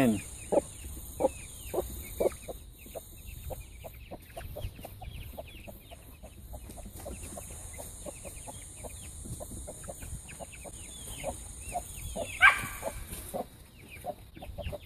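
Chickens clucking in short, repeated notes, with one louder call about twelve seconds in.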